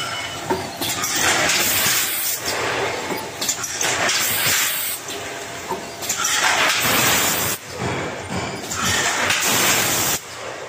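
Rotary premade-pouch packing machine running, with repeated hisses of compressed air from its pneumatic cylinders about every second or two over a steady mechanical clatter.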